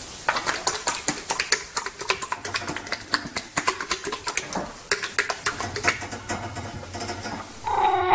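An animal making a rapid, irregular series of sharp clicks, several a second.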